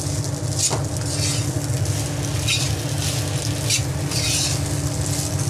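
Spatula stirring and scraping rice around a frying pan, a scrape roughly every second, over a light sizzle of the rice frying in oil. A steady low hum runs underneath.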